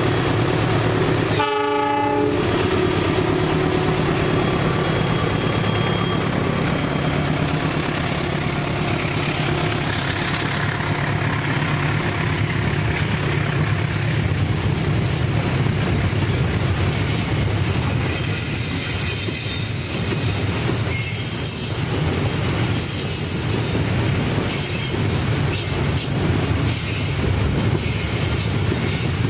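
A diesel locomotive hauling a long train of tank wagons passes close by. There is a short horn blast about two seconds in over the engine's low, steady running. Later the wagons' wheels clack rhythmically over the rail joints, with a few thin, high squeals.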